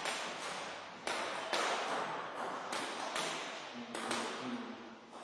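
Table tennis ball bouncing: several sharp clicks about a second apart, echoing in a large gym hall.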